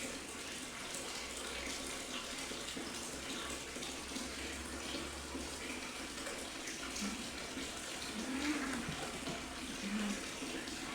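Low, drawn-out yowls from two tomcats squaring off to fight, three short ones in the second half, the middle one rising and falling. Beneath them is a steady hiss like running water.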